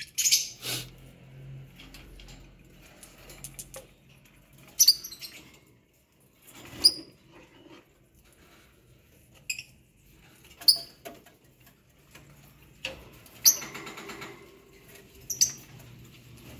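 Lovebirds in an aviary giving short, shrill squeaks and chirps at irregular intervals, every second or two, with some wing fluttering.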